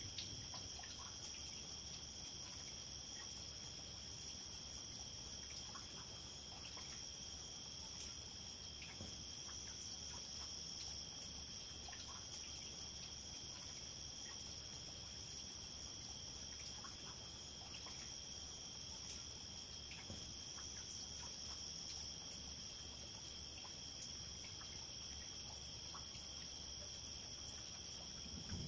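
Night insects, likely crickets, keeping up a steady high trill, with a faint patter of rain dripping on wet pavement underneath.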